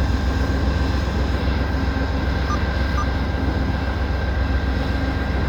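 Amtrak GE P42 diesel locomotive idling at a standstill, a steady low rumble with a few faint steady whines above it, under blizzard wind buffeting the microphone. Two short faint beeps sound about halfway through.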